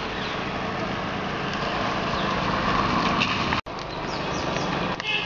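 Steady rushing of air from a woven hand fan being flapped fast over a charcoal brazier, buffeting the microphone, as the coals are fanned to roast corn cobs.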